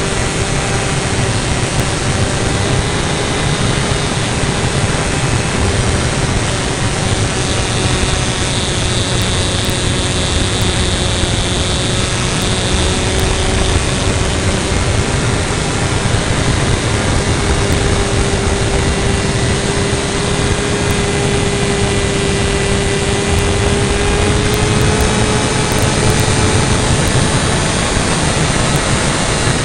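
Kyosho Calmato RC model airplane's motor and propeller running steadily at near-constant pitch, heard close up from a camera mounted on the plane, with wind rushing over the microphone.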